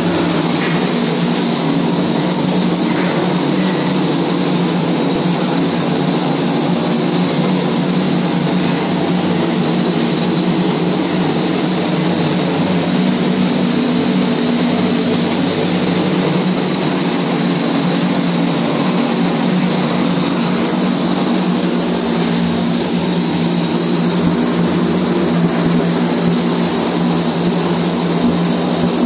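Steady industrial roar with a constant high whine in a shipyard work space while flux-cored arc welding is under way, unchanging throughout.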